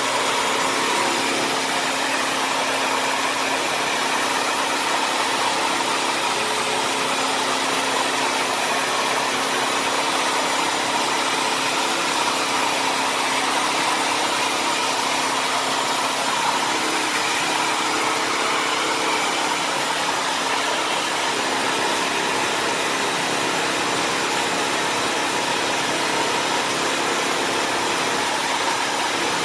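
Bissell CrossWave HydroSteam wet-dry vacuum running steadily, a constant motor whine and rush of suction with a faint hum.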